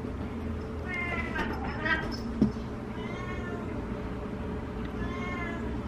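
A cat meowing about four times in short calls, two of them close together early on. A single sharp knock comes about two and a half seconds in, and a steady low hum runs underneath.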